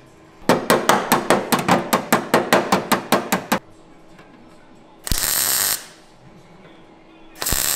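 MIG welder tack-welding a sheet-steel patch onto a car's rear quarter panel. First a rapid run of short crackling blips, about six a second for some three seconds, then two separate short tack welds about two seconds apart.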